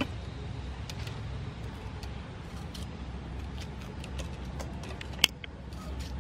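Faint taps and clicks of a small knife cutting and scraping sweet peppers over a woven bamboo basket, with one sharper click about five seconds in. A steady low background rumble runs underneath.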